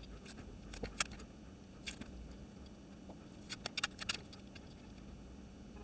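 Faint scattered clicks and crinkles of masking tape being picked and peeled off a painted 3D-printed plastic ball, with a quick run of clicks about three and a half seconds in.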